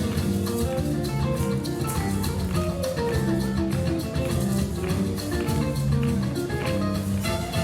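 Music with a steady beat and plucked, guitar-like notes.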